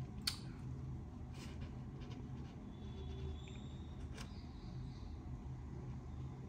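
Low steady hum with three faint clicks, the first the sharpest.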